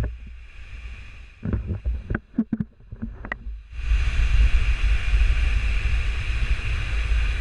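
Wind buffeting the microphone in a heavy low rumble. It drops away for the first few seconds, when a handful of short knocks and clicks sound, then comes back at full strength.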